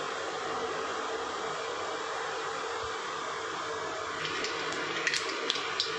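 Mustard seeds sizzling in hot oil in a steel kadhai: a steady hiss, with a few sharp pops from about four seconds in as the seeds begin to splutter, the sign that the oil is hot enough for the tempering.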